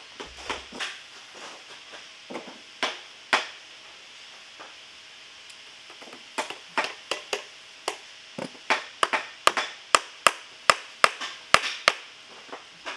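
A shoemaker's hammer striking small nails into a leather boot heel: a few scattered taps, a pause, then a quickening run of sharp strikes, about two to three a second.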